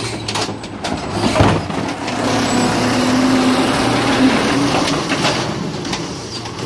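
Diesel garbage truck running while its automated side-loader arm grabs and lifts a yard-waste cart. There is a sharp knock about a second and a half in, and a steady hum from about two to four seconds in as the arm works.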